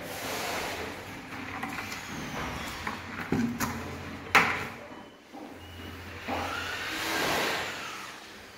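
Paintbrush strokes swishing and scraping across a wall as paint is brushed along the edge above the tiles. There are a few clicks about three and a half seconds in and a sharp knock about four and a half seconds in.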